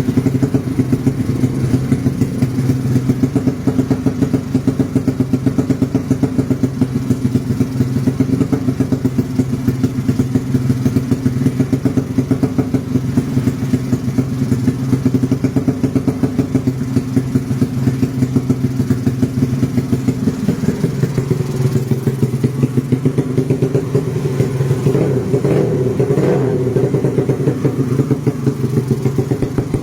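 Yamaha Jupiter Z's single-cylinder four-stroke engine running steadily at idle during a tune-up. Its note shifts slightly about twenty seconds in.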